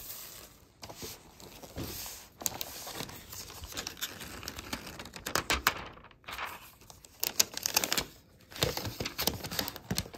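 Thin plastic wrapping crinkling and crackling in irregular bursts as it is handled and peeled off a new laptop.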